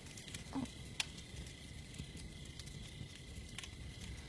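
Faint outdoor night ambience, a low steady hiss with a few scattered soft clicks and ticks.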